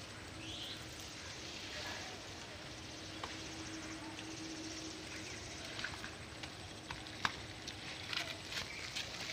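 Quiet outdoor ambience with scattered footsteps on a brick path, more frequent in the second half.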